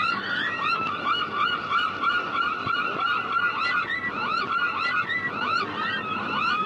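A flock of gulls calling, many short cries overlapping in a dense, unbroken chorus.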